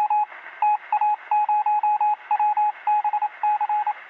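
Rapid electronic beeping: a single tone switched on and off in quick irregular groups of short and longer beeps, with a thin, telephone-like sound.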